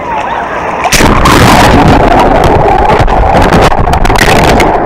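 Loud rushing water with wind buffeting the microphone, setting in suddenly about a second in and holding steady.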